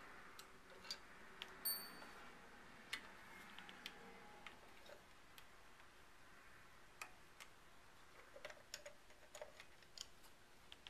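Faint, scattered small clicks and ticks of a screwdriver backing the screws out of a Remington 7600's two-part plastic butt plate, against near silence.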